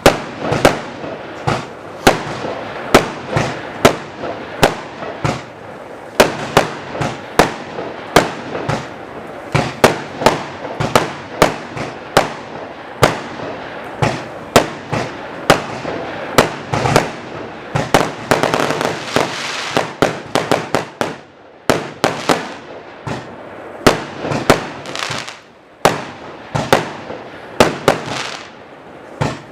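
A 200-shot firework cake, the SRPYRO Tornado, firing a rapid string of sharp reports, about two to three a second, over a steady noisy bed from the burning effects.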